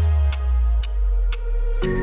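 Background music: electronic music with held synthesizer notes and light percussion ticks.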